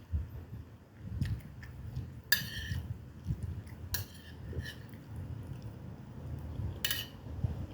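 Cutlery clinking against a dish twice, with a short metallic ring each time, over soft irregular eating sounds.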